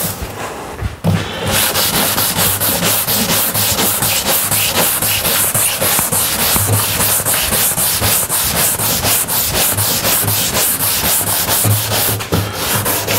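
Abrasive scour pad scrubbed by hand over a brushed aluminum tailgate trim panel in rapid back-and-forth strokes, working the scratches out of the metal at the heavy-pad stage before fine polishing. The strokes start after a brief lull at the start.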